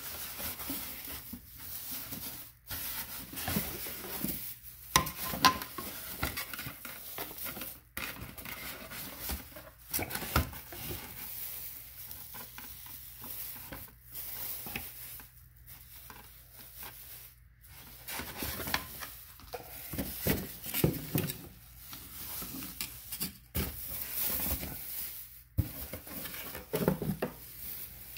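Clear plastic wrapping crinkling and rustling as new headlight assemblies are handled and pulled out of their bags, with a few sharp knocks among the crackle.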